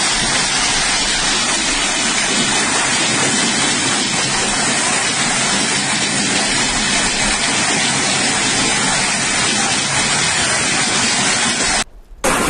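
Heavy hail and rain pouring down in a dense, steady rush, heard on a phone's microphone. It breaks off abruptly near the end.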